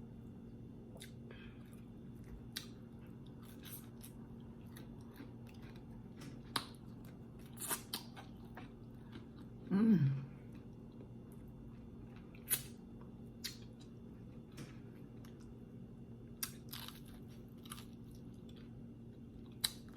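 Close-up eating of crispy fried chicken: scattered crisp crunches and chewing. A short 'mm' hum with falling pitch comes about ten seconds in, over a faint steady hum.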